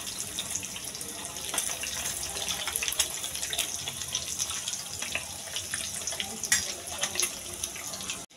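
Whole boiled eggs frying in hot mustard oil in a kadai: a steady sizzle with frequent small crackles and pops of spattering oil. It cuts off abruptly near the end.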